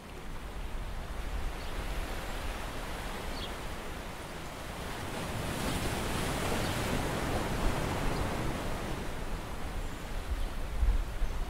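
Steady wash of sea water and wind around a small open fishing boat: an even hiss that swells about halfway through, over a low rumble.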